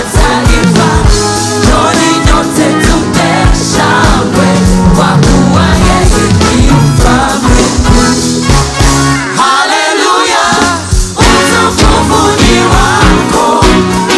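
Gospel worship music: singers over a band with a steady drum beat and bass. The bass and drums drop out for about a second about two-thirds of the way through, then come back in.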